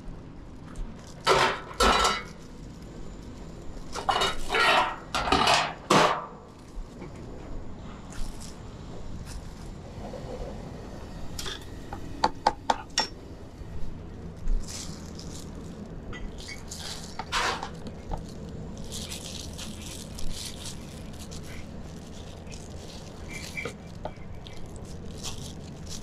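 Kitchen clatter at a noodle-soup stall: bowls, ladles and utensils clanking and scraping, with a quick run of sharp clinks about halfway, over a steady low hum.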